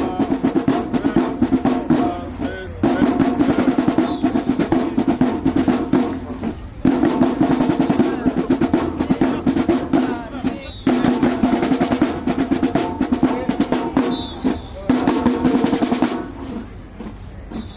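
Marching band drumline playing a cadence of snare rolls and bass drum hits, in repeating phrases about four seconds long with short breaks between them. It grows quieter near the end.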